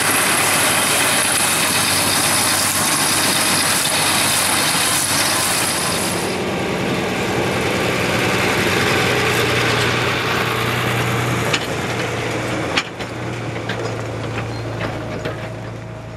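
A tractor running while working a round baler, heard as a dense, loud hiss. About six seconds in it changes to an older John Deere tractor's engine running with a steady low hum as it drives a trailer along a dirt track, with a couple of sharp knocks near the middle. The engine then fades away toward the end.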